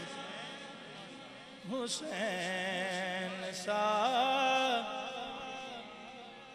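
Unaccompanied male singing of a devotional Urdu kalam: long held, wavering notes that fade away slowly, with two new sung phrases rising in about two and four seconds in.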